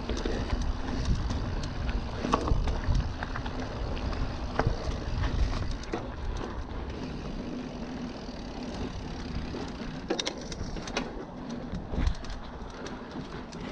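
Specialized Stumpjumper Comp mountain bike rolling along a dirt singletrack: tyre noise on the dirt with a low rumble, and scattered knocks and rattles from the bike as it goes over bumps.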